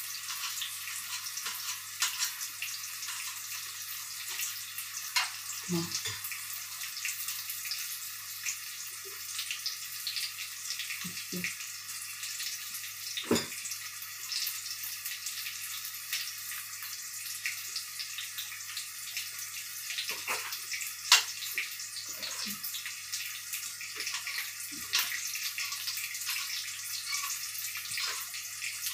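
Steady sizzling hiss of chopped garlic and onion frying in oil in a wok. Scattered sharp taps of a knife on a chopping board as cooked chicken is chopped, one louder tap about two-thirds of the way through.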